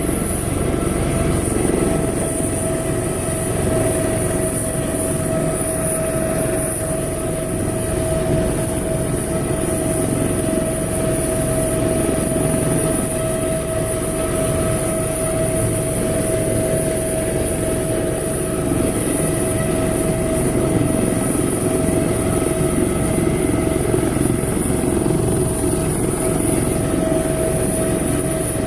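Air ambulance helicopter running on the helipad before takeoff, its turbine engine turning the rotors. A steady high turbine whine, made of several held tones, sits over a dense low rush of rotor wash.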